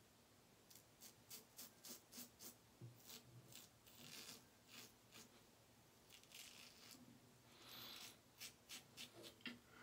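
Faint, quick scratchy strokes of a Blackland Sabre single-edge safety razor cutting stubble during a cleanup pass. They come in runs, roughly three a second, with a couple of longer soft hisses between the runs.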